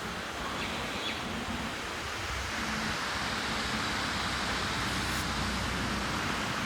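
Water pouring over a small park waterfall: a steady, continuous rushing, a little louder from about two and a half seconds in.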